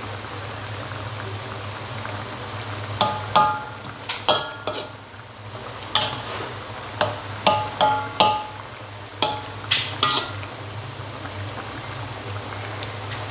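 Metal ladle knocking and scraping against the side of an aluminium wok as a watery stew is stirred: about a dozen sharp, briefly ringing clanks, starting about three seconds in and stopping about ten seconds in, over a steady low hum.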